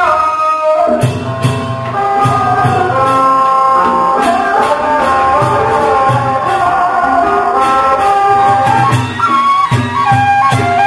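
Traditional Vietnamese ceremonial music: a loud wind instrument plays a melody over regular drum beats and sharp percussion strikes.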